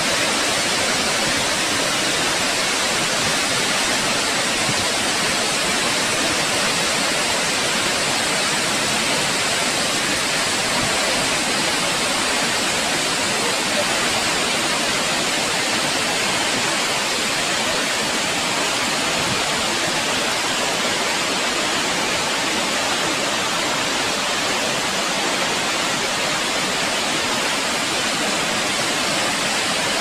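Large waterfall pouring into its plunge pool: a steady, unbroken rush of falling water and spray.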